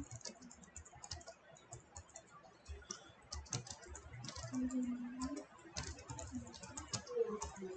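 Typing on a computer keyboard: quick, irregular keystrokes clicking away at a steady working pace.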